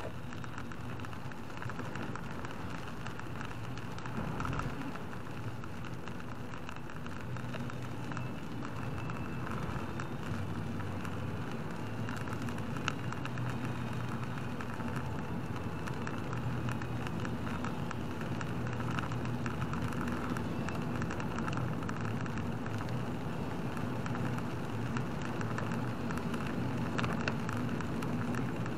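Heavy rain falling on a car's windscreen and roof, heard from inside the cabin, over a steady low hum of the car and its tyres on the wet road.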